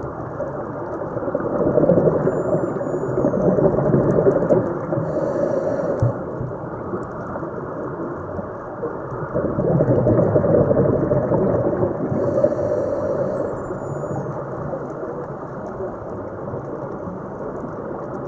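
Underwater ocean ambience: a low, rushing rumble that swells twice, each swell followed by a brief high hiss and a faint falling whistle.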